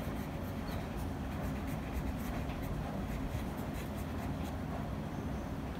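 Marker pen writing on paper sheets on a clipboard: faint, short scratchy strokes over a steady low hum.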